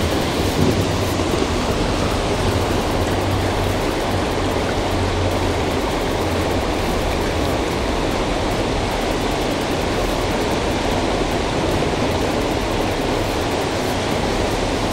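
Steady rush of water pouring over a river dam and churning below it, with a low rumble underneath that swells and fades.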